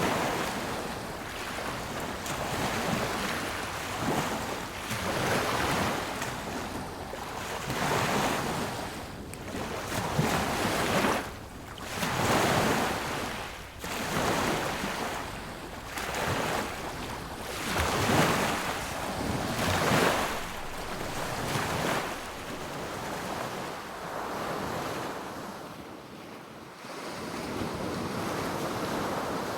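Sea waves breaking on a beach, a steady surf wash that swells and falls every couple of seconds, easing off near the end.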